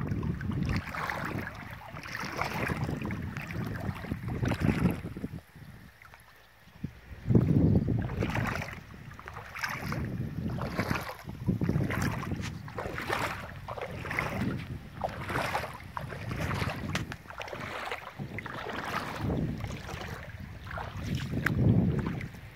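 Footsteps splashing and squelching through shallow water and wet sand, about one a second, with wind gusting on the microphone.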